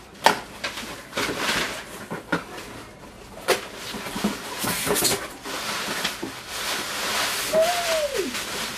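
Gift packaging being handled and unwrapped by hand: irregular crinkling and rustling with sharp clicks and scrapes, busiest around the middle. Near the end a short tone falls steeply in pitch.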